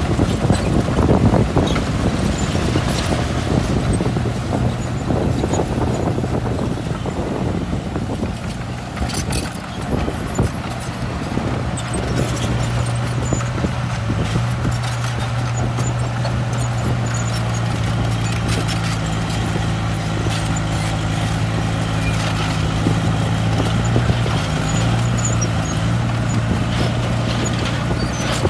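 Heavy diesel construction machinery running: a steady engine drone that grows stronger about halfway through, with irregular metallic clanks and clatter throughout.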